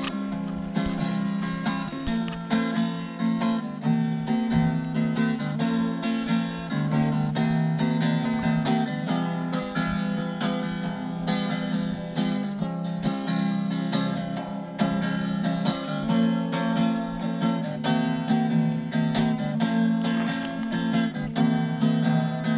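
Acoustic guitar music: steady strummed chords, an instrumental passage with no singing.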